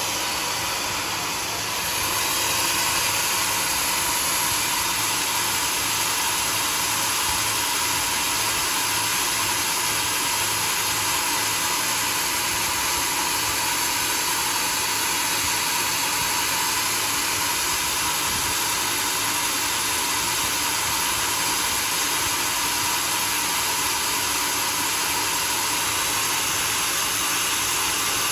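Homemade sawmill running steadily, its saw cutting through a log; the level steps up slightly about two seconds in.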